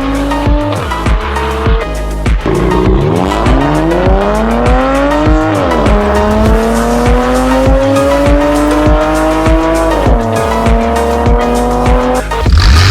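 A sports car engine accelerating hard through the gears: its pitch climbs steadily and drops back at each upshift, several times. Background music with a steady beat runs underneath.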